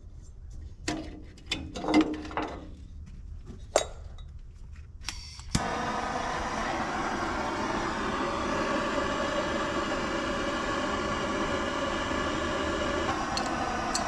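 A few metal clinks and taps. Then, about five and a half seconds in, a starter suddenly engages and cranks the Mitsubishi diesel tractor engine steadily without it firing. The owner leans towards low compression from stuck piston rings as the cause of the no-start.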